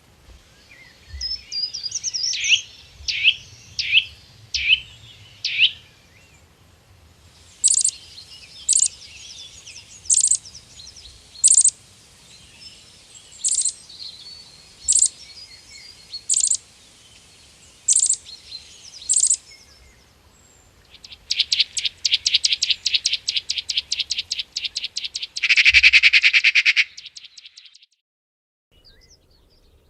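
Songbird calls in several changing bouts. First comes a quick run of about seven falling whistled notes. Then sharp single high notes follow about every second and a half, and near the end a fast rapid trill runs into a short buzzy burst.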